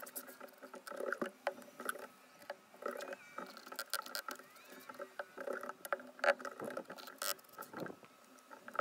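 Notched steel trowel scraping and combing thinset mortar across cement board, with irregular scrapes and short clicks and knocks as large tiles are set down into the mortar.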